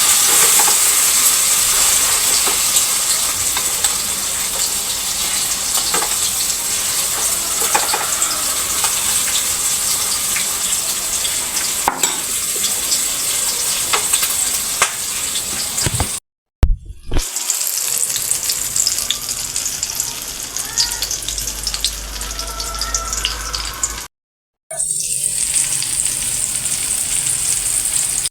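Tortang talong (eggplant dipped in beaten egg) frying in hot oil in a pan: a steady sizzle with scattered crackles and pops. It cuts out briefly twice, about two thirds of the way through and again near the end.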